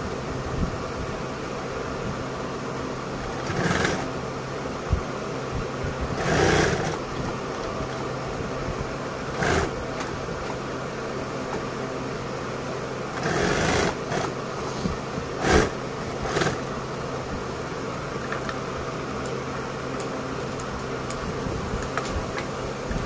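A steady mechanical hum, with about half a dozen short rustles and scrapes as stiff leatherette bag panels are handled and folded on a sewing table; the longest lasts about a second, a little past the middle.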